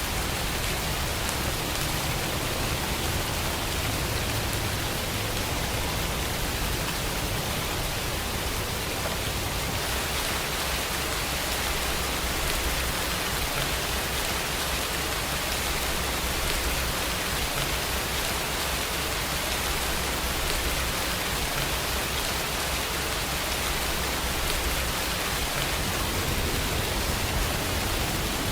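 Steady rain falling, a dense even hiss, with a low rumble underneath.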